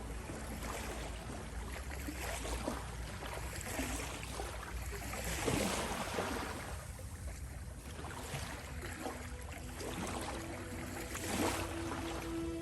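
Ocean surf washing onto a beach, the hiss of the waves swelling and fading every few seconds, strongest about halfway through and near the end.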